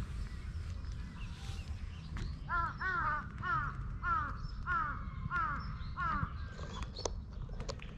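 A crow cawing, a run of about seven caws at roughly two a second, starting about two and a half seconds in, over a steady low background rumble.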